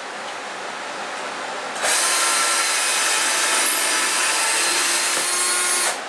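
Electric drill running at a steady speed, boring a hole into a plywood sled. It starts abruptly about two seconds in and cuts off just before the end.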